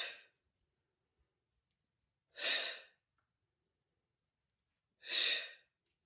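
A woman's forceful breaths out, three of them about two and a half seconds apart, each a short blow of about half a second as she curls up into an oblique ab crunch.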